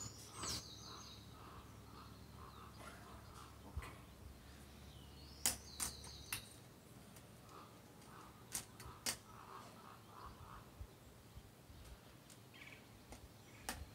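Metal crutches knocking a few times on a tiled floor as a man pushes up from a wheelchair and takes slow steps, the knocks sharp and irregularly spaced. Birds chirp near the start and again about five and a half seconds in.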